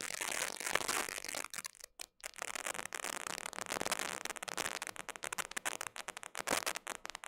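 Crackling, broken-up noise from a video call's audio stream breaking up over a failing internet connection, with a brief total dropout about two seconds in.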